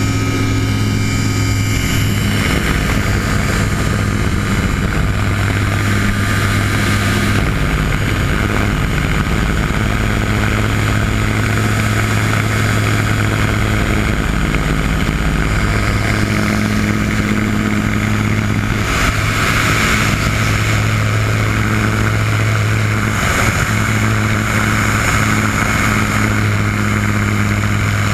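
Light aircraft engine and propeller droning steadily in cruise flight, with a strong rush of airflow over the exposed cockpit.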